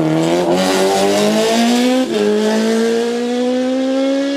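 Race car engine revving hard as it accelerates away out of a hairpin, pitch climbing steadily, with one quick upshift about two seconds in before it climbs again.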